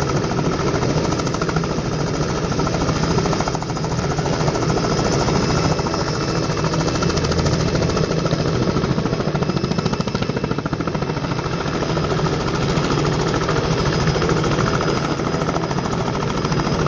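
Robinson R44 helicopter hovering just above the ground: the fast, steady beat of its two-blade main rotor over the drone of its piston engine.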